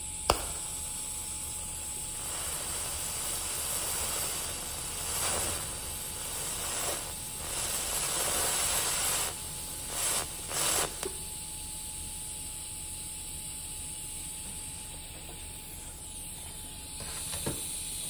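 DC electrode-positive TIG arc from a Primeweld 325X balling the end of a tungsten electrode: a hissing arc that swells and fades as the foot pedal is pumped, from about two seconds in until about eleven seconds, with two short louder surges just before it stops. A sharp click comes just after the start, and a steady hiss carries on after the arc is off.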